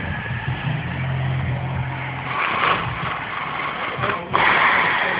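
A man snoring, with rough drawn-out breaths. A louder snore starts sharply about four seconds in.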